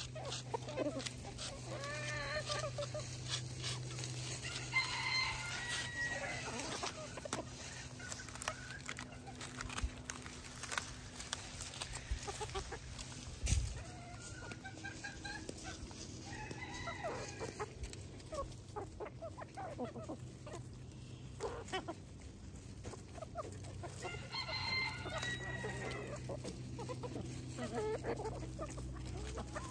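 Backyard chickens clucking, with a longer call twice, about five seconds in and near the end. Many small ticks and taps run underneath.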